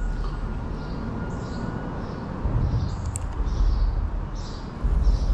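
Outdoor ambience: a low rumble that surges up a few times, with a small bird chirping over and over, high-pitched. A single sharp click comes about three seconds in.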